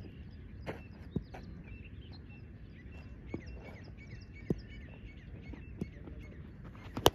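Outdoor background with small birds chirping repeatedly, a few light knocks scattered through, and one sharp crack just before the end.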